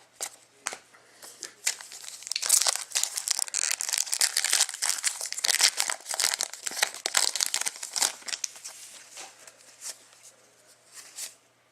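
A hockey trading card pack wrapper being torn open and crumpled by hand: a dense crinkling and tearing crackle for several seconds that thins out near the end.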